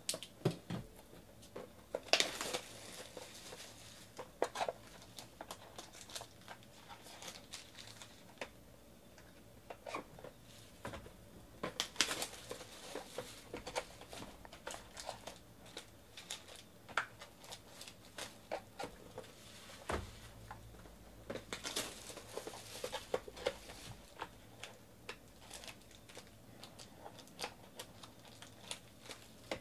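Plastic shrink-wrap being torn and crinkled off trading card boxes, with taps and scrapes of the cardboard boxes being handled and opened. The crinkling comes in louder spells about two seconds in, around twelve seconds and again a little past twenty seconds.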